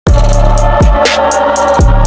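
Electronic intro music with deep bass kicks that drop sharply in pitch and a quick, steady hi-hat pattern. A noise sweep rises about a second in.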